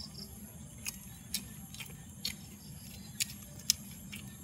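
Quiet eating sounds: a handful of sharp, faint clicks at irregular intervals as chopsticks and fingers pick apart a firm boiled suckermouth catfish, over a steady faint insect buzz.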